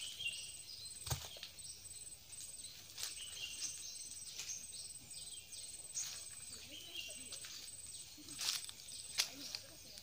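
Forest ambience: birds chirping in short calls every few seconds over a high insect buzz that comes in even pulses. A few sharp knocks, the loudest about a second in.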